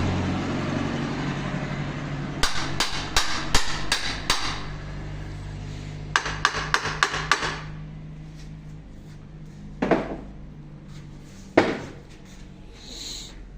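Hammer tapping on metal during a steering rack rebuild, in two quick runs of about half a dozen blows each, followed by two single knocks. A steady low hum sits under them.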